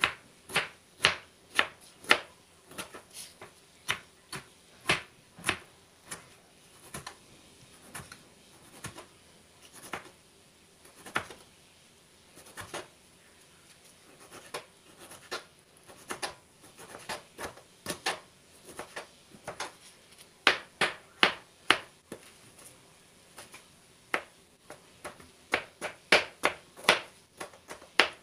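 Kitchen knife slicing and dicing a tomato, the blade knocking on a plastic cutting board: irregular sharp taps, some in quick runs of several a second, with sparser stretches in between.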